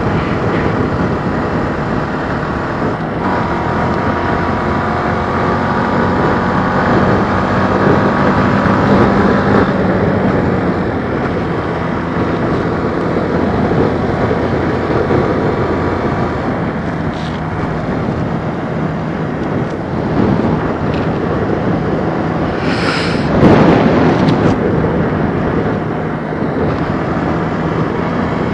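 Kawasaki KLX125's single-cylinder four-stroke engine running as the bike rides downhill, with wind rushing over a helmet-mounted microphone. A louder rush of about a second comes about three-quarters of the way through.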